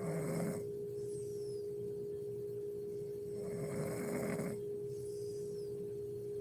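A woman snoring in her sleep, with two snores about three and a half seconds apart: one right at the start, the other about three and a half seconds in. A steady humming tone lies under them.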